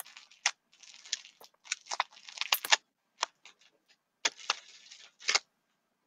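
Irregular bursts of rustling and sharp crackles from burlap and fabric being handled and tucked into a wreath close to the microphone, with a short lull about three seconds in.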